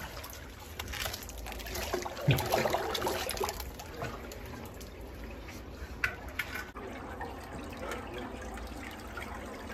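Shallow underground stream trickling and splashing, with irregular scrapes and knocks from a man crawling through it.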